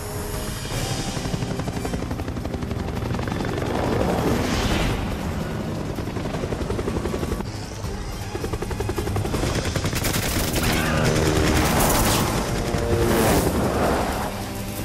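Action film soundtrack: score music over a helicopter's rapid rotor chop, with repeated bursts of gunfire that swell several times, mostly in the second half.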